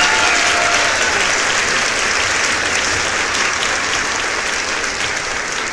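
Applause from a crowd, dense steady clapping that slowly fades, with the last tones of music dying away in the first moment.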